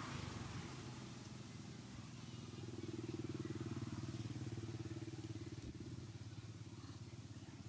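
A motor vehicle engine running at a distance, a low hum with rapid pulsing that grows louder about three seconds in and then slowly fades, as if passing by.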